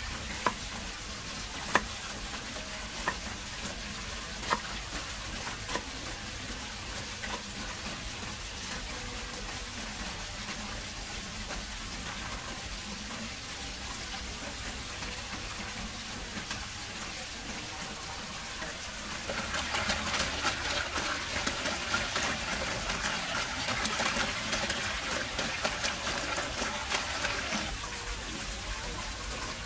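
Cleaver chopping into a pineapple on a wooden chopping block: about five sharp knocks a little over a second apart, then a steady low hiss. About two-thirds of the way through, a louder crackling hiss comes in for some eight seconds, then drops away.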